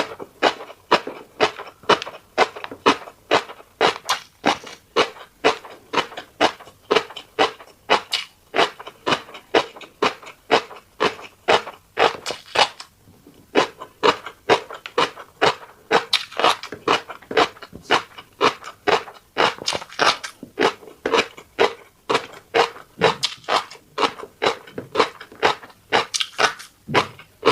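Close-miked chewing of a mouthful of fish roe and rice: wet smacking and crackling at about two to three chews a second, with a brief pause about thirteen seconds in.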